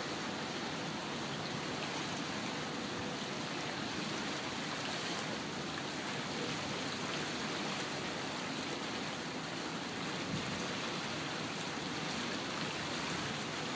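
Steady rushing of water alongside a moving lake excursion boat.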